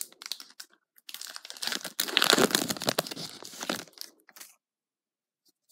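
Foil booster pack wrapper crinkling and being torn open, the rustle growing louder about a second in and stopping shortly before the end.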